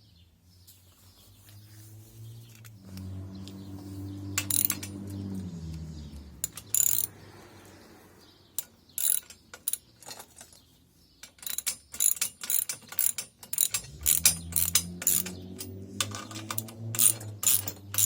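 Ratchet wrench clicking in short runs as the tow bar's mounting bolts are tightened. A low hum rises and fades a few seconds in and comes back near the end.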